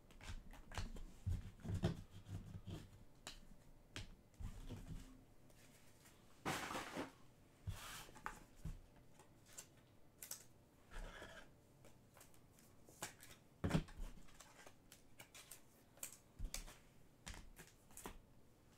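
Trading cards and their packaging being handled off-camera: scattered light clicks and rustles, with a longer swish about six and a half seconds in and a sharper click near fourteen seconds.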